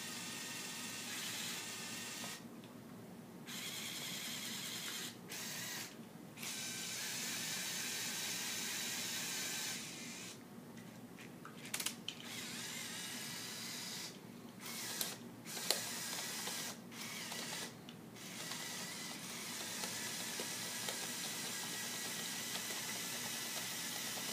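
Lego Technic 8043 excavator's electric motors and gear trains whirring, stopping and starting again and again as it is driven, with a couple of sharp clicks partway through.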